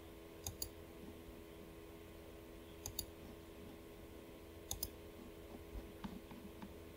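Faint computer mouse clicks: three quick double clicks a couple of seconds apart, then a few lighter single clicks, over a steady low background hum.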